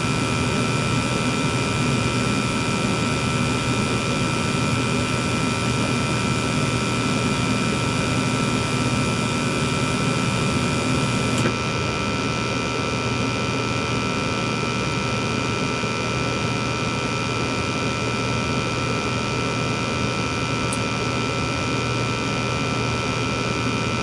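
Gas furnace running with a steady rush and hum. About halfway through, the sound drops a little and thins as the gas valve closes and the burners shut off, while the fan motors keep humming.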